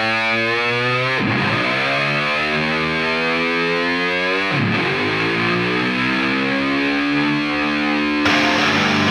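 Heavy rock music: a distorted electric guitar mimicking a motorcycle revving up, its pitch sliding upward in long sweeps that drop back twice. Near the end it settles on a steady note.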